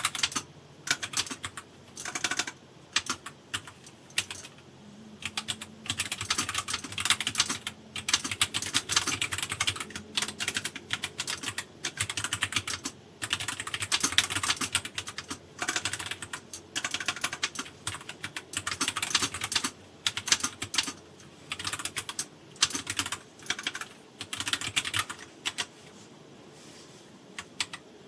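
Continuous typing on a Royal Kludge RK F68 low-profile mechanical keyboard with brown tactile switches: fast runs of key clacks broken by short pauses, thinning out near the end.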